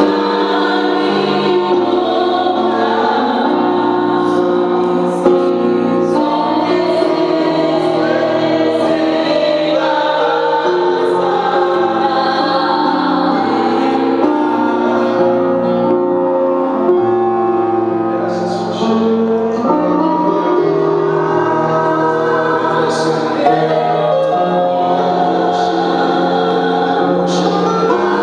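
Gospel choir singing with music, chords changing every few seconds.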